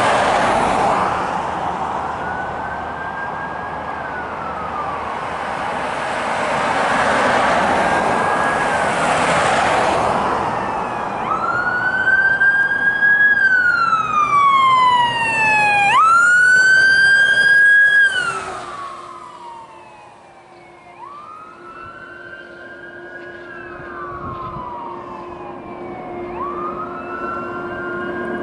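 Fire engine responding with its electronic siren on a slow rising-and-falling wail. Heavy vehicle noise dominates the first ten seconds, with the siren faint beneath it. The wail is loudest and fullest from about 11 to 18 seconds as the truck goes by, then drops off sharply and carries on fainter as the engine moves away.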